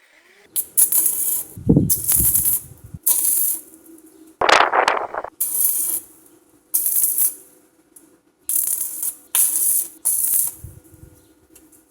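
Arc welding in short bursts: about eight tack welds of crackling, each half a second to a second long, with a steady hum underneath and a couple of low knocks between them.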